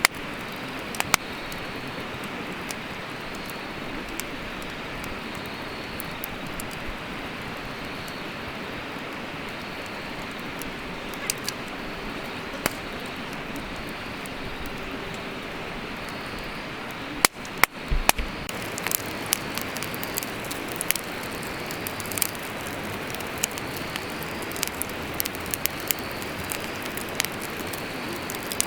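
Wood fire burning in a fire pit: a steady hiss with scattered sharp crackles and pops. After a brief break a little past halfway, the pops come more often.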